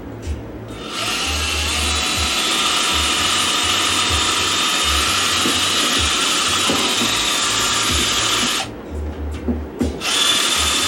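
Power drill boring a hole through the bottom of a plastic bucket, run steadily for about eight seconds under firm pressure. It stops briefly, then starts again near the end.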